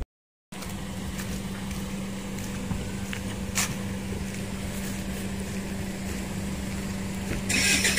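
A vehicle engine running with a steady low hum under outdoor wind noise, after half a second of silence at the start; a hiss rises near the end.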